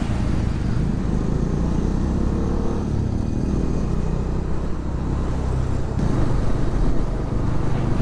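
Bajaj Dominar 400's single-cylinder engine running while the motorcycle is ridden, under a steady low wind rumble on the mic; the engine note changes about three seconds in.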